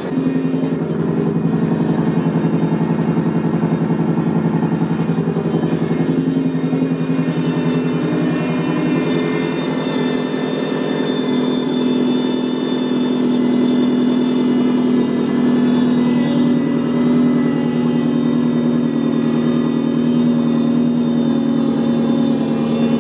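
Subaru STI's freshly rebuilt 2.5-litre turbocharged flat-four (EJ257 on an IAG stage 3 solid-deck block) idling steadily in its first minutes of running after the rebuild.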